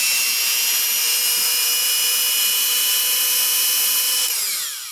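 Milwaukee Model 250 Hole Shooter 1/4-inch corded electric drill, rated 2000 RPM and freshly fitted with all new bearings, running free at full speed with a steady high whine. A little over four seconds in the trigger is released and the motor winds down, falling in pitch.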